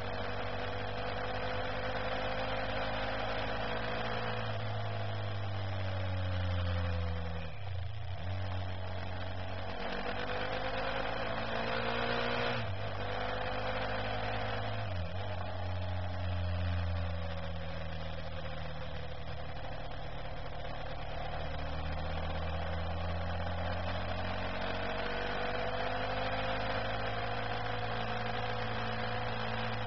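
Motorcycle engine running steadily under way, its revs falling sharply and climbing back a few times along the bends, over a constant rush of wind and road noise.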